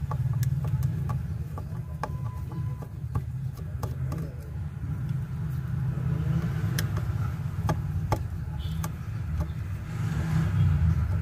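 A thin metal tool clicking and scraping against the plastic housing of a Bluetooth speaker as it is pried around the speaker driver, in short irregular clicks. Underneath runs a steady low rumble, the loudest sound.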